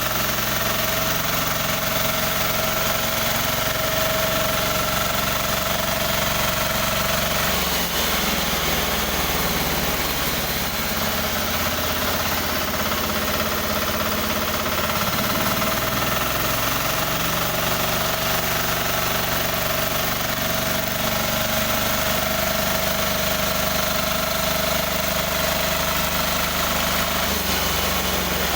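Newly assembled sawmill machine running under test, its engine going steadily with a high whine above it; the low engine note shifts a few times.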